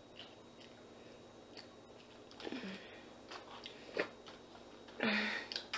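Close-miked eating sounds: soft chewing with a few sharp mouth clicks, and a brief louder breathy noise about five seconds in.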